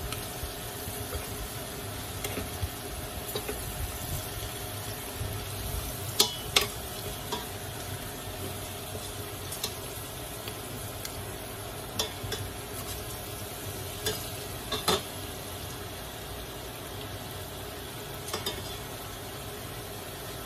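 Metal tongs clinking against a stainless steel pot and a wire strainer while lifting blanched vegetables out of simmering water, over a steady bubbling hiss. The sharpest clinks come as a pair about six seconds in, with a few more scattered after.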